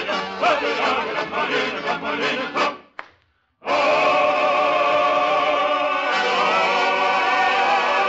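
Radio-drama music: a lively passage with voices breaks off abruptly about three seconds in, and after half a second of silence a chorus of voices holds long, wavering notes.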